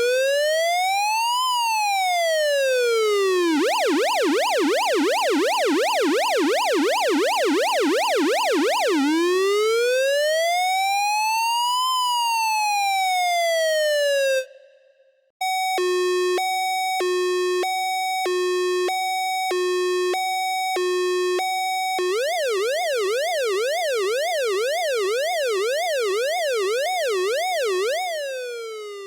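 Electronic police siren sound effect cycling through its tones. First a slow wail rising and falling, then a fast yelp of about four sweeps a second, then the wail again. After a short break comes a two-tone hi-lo alternation, then a fast warble that fades out near the end.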